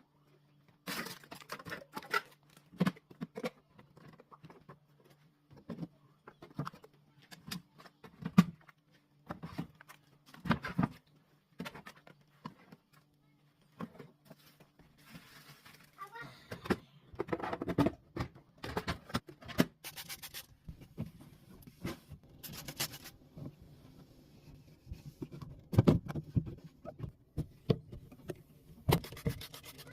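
Irregular knocks, clicks and rustles of household items being handled and set down while a fridge is cleaned out, over a steady low hum that stops about halfway through. A few short stretches of hiss come in the second half.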